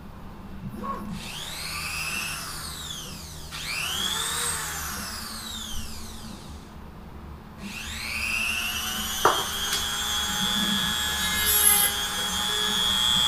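Corded handheld rotary tool cutting plastic: its high motor whine rises and falls twice, then climbs again about eight seconds in and holds steady while it cuts, with a few sharp clicks.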